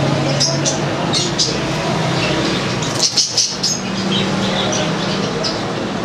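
A flock of caged budgerigars chirping, with short high chirps scattered throughout and a dense cluster about three seconds in, over a steady background noise.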